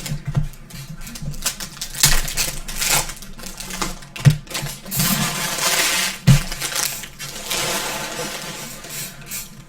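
Trading cards and card packs being handled on a table: a run of small clicks and taps, with a spell of rustling about halfway through and a couple of soft knocks.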